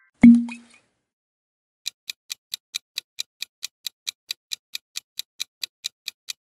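Countdown-timer ticking sound effect, clock-like ticks at about four to five a second, starting about two seconds in while the quiz timer bar fills. It is opened by a short low thump about a quarter second in, a screen-transition effect.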